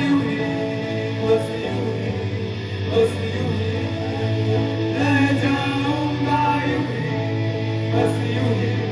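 Rock song: a singer over guitar and a steady bass line, with a few sharp drum hits.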